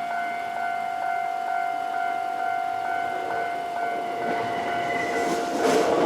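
Japanese railway level-crossing electronic warning bell ringing in a steady repeating pattern. In the last couple of seconds a train's running noise rises over it as the train arrives at the crossing.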